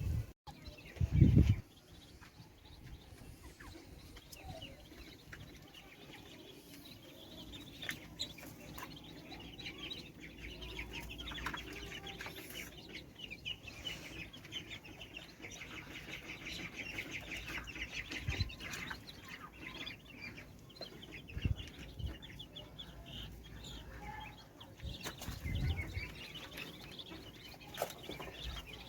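A flock of domestic poultry, Muscovy and local ducks, keeping up a steady chatter of quick high peeps and clucks at feeding time. A few low thumps break in, the loudest about a second in.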